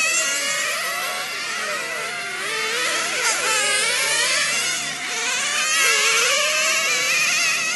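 High-pitched whine of 1/10-scale nitro touring cars' small glow engines racing, several engines overlapping, each rising and falling in pitch as the cars accelerate and brake through the corners.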